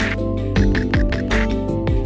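Background music with a steady beat: held synth chords over a bass line and regular percussion hits.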